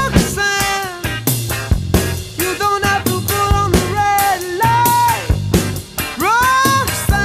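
Background music: an upbeat band with drum kit and a lead melody whose notes slide up into pitch and fall away.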